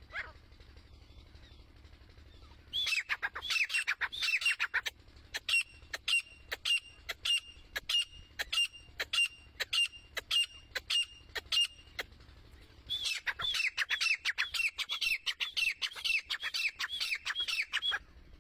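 Female grey francolin (teetar) calling: a fast run of sharp notes falling in pitch, settling into evenly spaced high notes about two a second, then quickening again and stopping just before the end.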